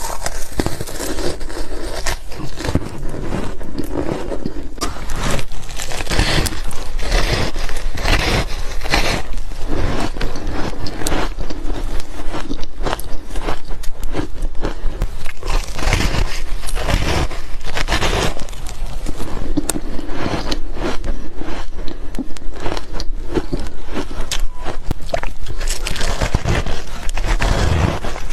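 Close-miked crunching of ice being bitten and chewed, a dense run of crisp, crackly crunches that goes on without a break.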